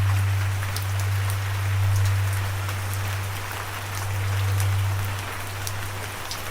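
Steady rain hissing, with scattered sharp drop ticks. Under it runs a low hum that swells and fades every two to three seconds.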